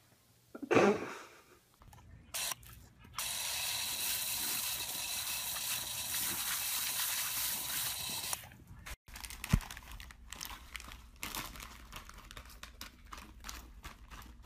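A brief loud sound just under a second in, then a garden hose spraying water in a steady hiss for about five seconds, then the scattered crackle and rustle of a plastic snack bag with a dog's head stuck inside it.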